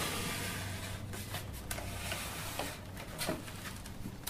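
Moulded plastic hard-face pieces being pushed by hand onto the wooden bar of a beehive box: a few light knocks and scrapes of plastic on wood, over a faint steady hum.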